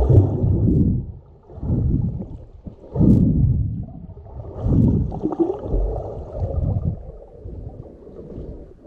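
Muffled underwater sound of water rushing over a submerged camera, swelling and fading every second or two as the swimmer strokes, with a short click about three seconds in.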